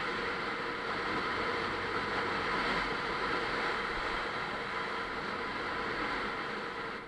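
Bajaj Pulsar 150 motorcycle ridden at a steady speed: a steady rush of wind and road noise over the running single-cylinder engine.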